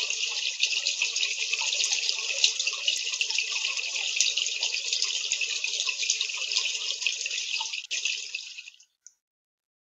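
Steady rush of running water that fades out near the end.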